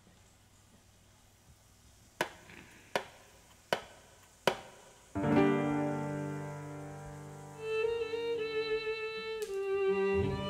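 Four sharp clicks, evenly spaced like a count-in. A live band then comes in on a sustained chord about five seconds in, and a melody line enters on top a couple of seconds later.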